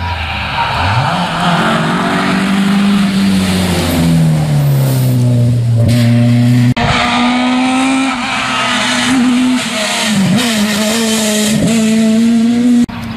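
Rally car engines at high revs. The note climbs, then falls away, and after an abrupt cut about seven seconds in it holds high with a couple of brief dips.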